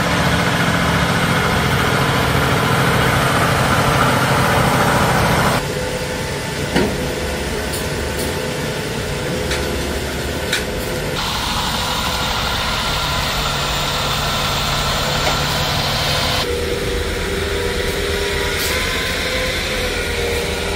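Heavy-haul truck diesel engines running steadily as a multi-axle superload trailer rolls past. The sound changes abruptly three times, roughly every five seconds.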